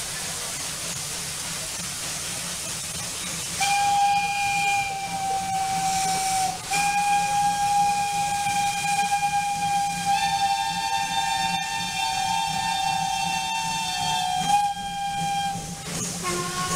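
Steam locomotive whistles over a steady hiss of steam. One whistle blows a long steady blast a few seconds in, breaks off briefly, then blows again for about nine seconds, with a second, slightly higher whistle sounding together with it for several seconds in the middle; near the end a different whistle gives a short toot.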